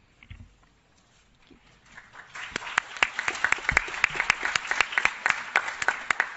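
Audience applauding, starting about two seconds in after a brief hush and carrying on as a steady patter of many claps.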